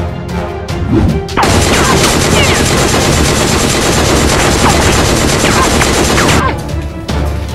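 Dubbed-in rapid gunfire sound effect with short whizzing whines, starting about a second and a half in and breaking off about a second before the end.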